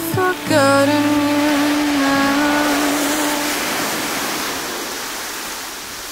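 A held sung or played note of background music dies away about three seconds in, under a steady rushing wash of noise like surf that slowly fades.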